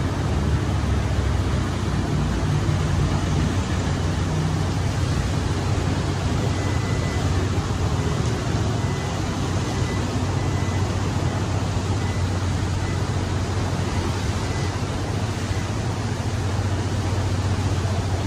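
Steady road traffic noise: car engines running with a continuous low hum.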